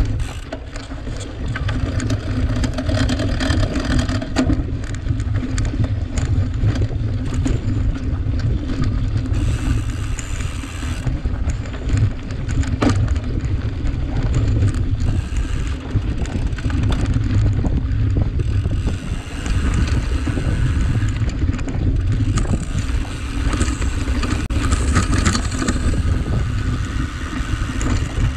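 Cyclocross bike being ridden over rough dirt and rocky ground: a steady low rumble with frequent rattles and clicks from the bike.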